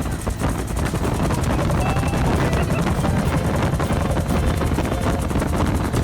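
Bell UH-1 Huey helicopter in flight, heard from on board: the rotor beats fast and steadily over the running turbine engine.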